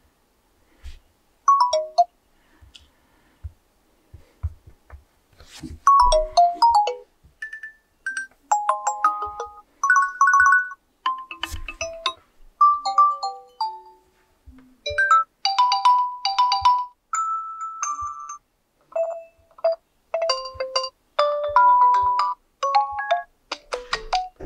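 Nokia G11 ringtones previewed one after another from the phone's speaker: a quick succession of short melodic snippets of a few electronic notes each, every one cut off after a second or two as the next begins.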